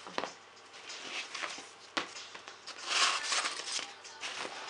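Fabric shopping trolley bag rustling as it is handled and its flap pulled closed, loudest about three seconds in, with a sharp knock about two seconds in.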